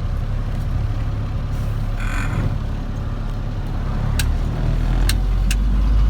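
Car engine and road rumble heard from inside the cabin while driving slowly, the low rumble swelling near the end, with a few light clicks.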